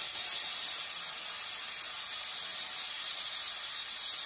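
Aluminium pressure cooker venting steam in a steady hiss as its weight valve is held tilted up with a wooden spoon: the pressure is being released by hand after cooking so that the lid can be opened.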